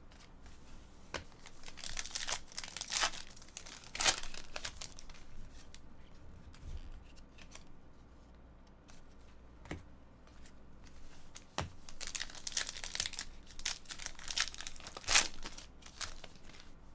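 Trading cards being shuffled and flicked between the hands, and a foil card pack crinkled and torn open, in short bursts of rustling with a few sharp snaps.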